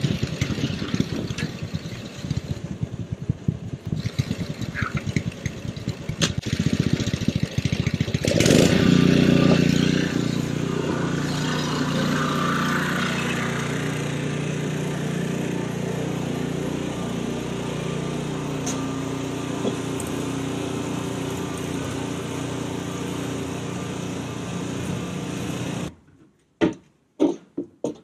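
Gasoline snowblower engine running. It chugs fast and unevenly for the first several seconds, then rises to a steadier, louder run about eight seconds in. It cuts off suddenly a couple of seconds before the end, followed by a few faint knocks.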